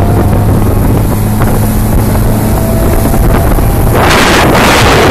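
Boat engine running at a steady, even hum under rushing wind and water noise. About four seconds in, a louder gust of wind buffets the microphone.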